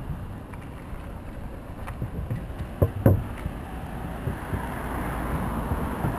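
Wind rushing over an action camera's microphone while riding a mountain bike, with the bike rattling and rumbling over the trail. There are two sharp knocks a little before halfway, and the rushing noise grows louder in the second half.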